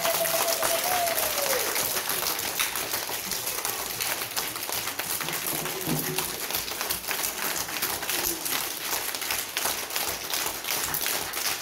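A classroom of young children clapping their hands together, a dense continuous patter of claps. A voice calls out one long held note at the start.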